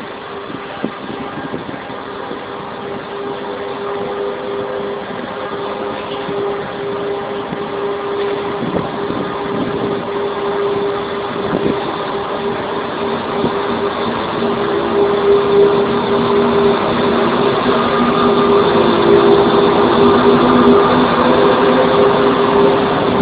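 Class 6400 diesel-electric locomotives working hard as they pull a heavy coal train away. Their diesel engines give a steady droning note that grows louder as they come closer. In the second half several engine notes overlap as the locomotives pass.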